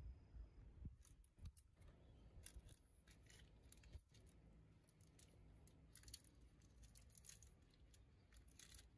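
Faint scattered clicks and rustles of a small object being handled and worked by hand.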